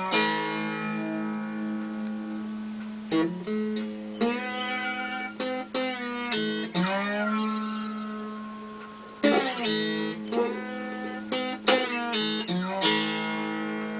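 Homemade cookie tin guitar being played: plucked notes and chords that ring on, with a few notes sliding up and down in pitch.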